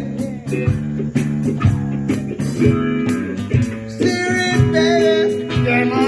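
Band music led by guitar, with chords struck in a steady, regular rhythm.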